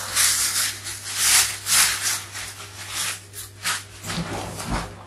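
Plastic bag and woven sack holding dried crayfish being handled, rustling and crinkling in irregular bursts, with a couple of low thumps near the end.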